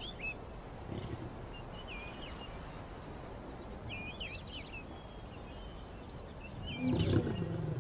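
Birds chirping in short, repeated phrases over a steady outdoor background. Near the end, a louder low, pitched grunt-like call rises up from an animal.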